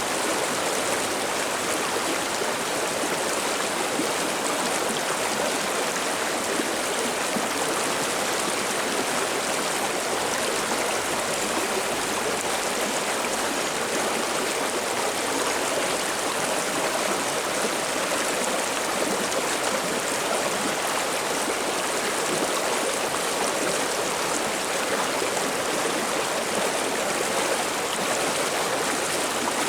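River water flowing and splashing steadily over rocks, an even babbling rush.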